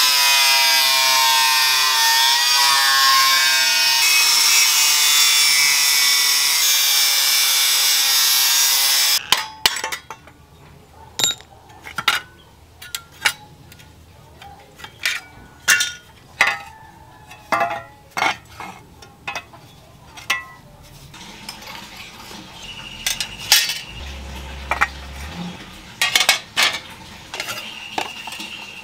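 An electric power tool runs with a steady whine that wavers in pitch, then stops abruptly about nine seconds in. Irregular sharp metallic clinks and taps follow, as of small metal parts being handled and set down.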